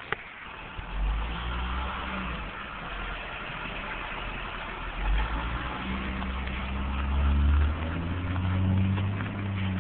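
A car engine running close by, its low hum stepping up in pitch several times as it revs, over a steady hiss.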